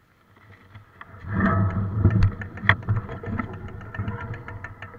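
Mountain bike rolling over rough trail: a low rumble from the tyres and frame, with many sharp clicks and rattles of the bike. It starts about a second in.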